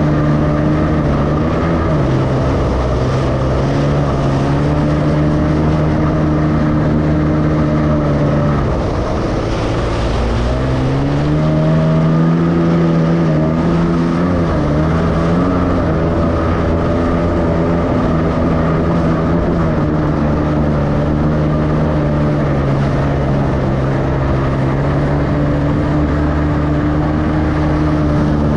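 Personal watercraft (jet ski) engine running under throttle. Its pitch drops slightly about 1.5 s in, eases off about 8.5 s in, climbs again about two seconds later, then settles back to a steady lower pitch.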